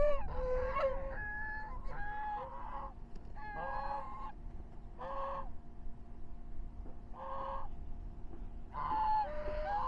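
Domestic white geese honking: a run of short, repeated calls, coming thick and fast, then thinning out mid-way and picking up again near the end.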